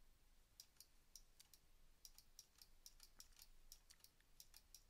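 Faint, irregular clicks of a computer mouse and keyboard, a few each second, over near silence.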